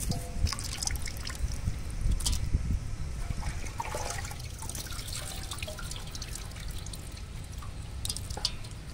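Water dripping and trickling off freshly washed raw fish chunks into a stainless steel bowl, with scattered small wet clicks as pieces are handled.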